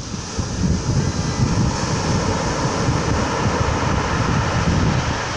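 Surf breaking and washing over a pebble beach, a steady rush that swells about half a second in, with wind buffeting the microphone.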